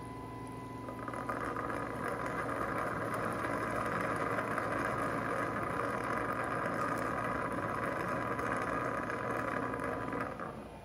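Dreame L10s Ultra robot vacuum-mop and its base station running a motor, a steady whoosh that starts about a second in and cuts off shortly before the end.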